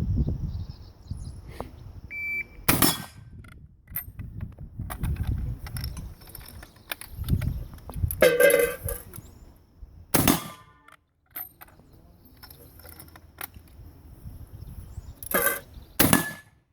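Several gunshots at irregular intervals: sharp single reports separated by seconds, with the last two close together near the end.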